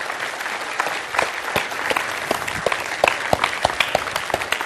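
Church congregation applauding: many hands clapping in a dense, steady wave.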